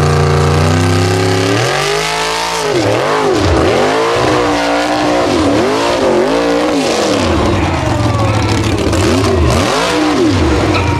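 Off-road racing buggy's engine revving hard on a steep dirt climb, its pitch swinging up and down over and over as the wheels lose grip and the buggy flips and tumbles backward down the slope. A steadier, lower engine note runs under it near the end.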